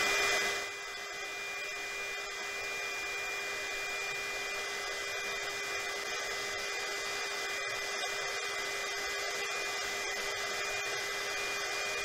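KAIWEETS KEH01 mini heat gun running steadily on its high setting, heater coil at about 400 °C: an even rush of blown air with a steady fan whine, like an ordinary hair dryer.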